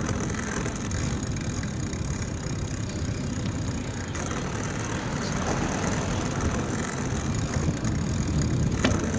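Steady low rumble of wind buffeting the microphone and road noise while riding a mountain bike along a city street, with one short click near the end.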